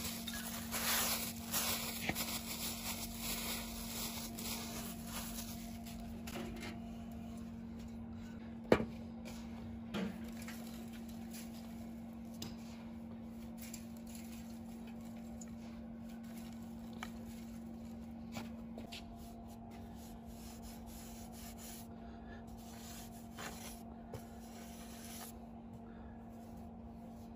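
Cloth rubbing and brushing grit off the metal base of an upturned frying pan, busiest in the first few seconds, then fainter rubbing and scattering of sand. A sharp knock about nine seconds in and a smaller one a second later, over a steady low hum.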